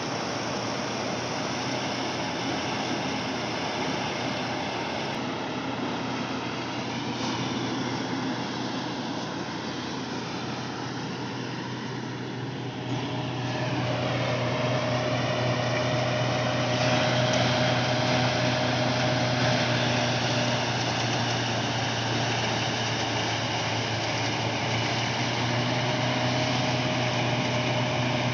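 Tractor-driven Valasumani paddy thresher running steadily with the tractor engine, a constant hum over a rushing noise as bundles of rice are fed into the threshing drum. The sound grows louder about halfway through and stays steady.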